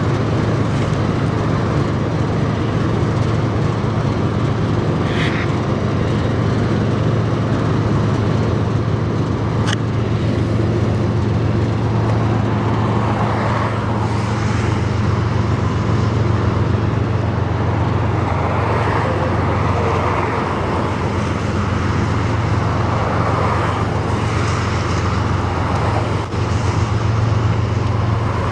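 A steady, low engine drone with traffic noise over it.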